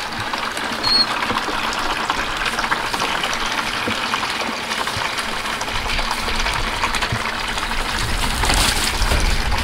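Water running steadily into a container as a dog's drinking bowl is filled.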